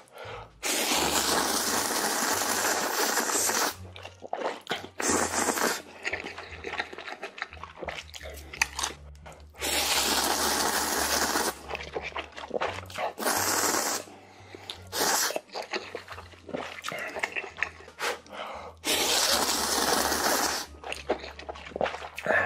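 A person slurping ramen noodles off chopsticks in four long sucking pulls, the first about three seconds long, with wet chewing and smacking in between.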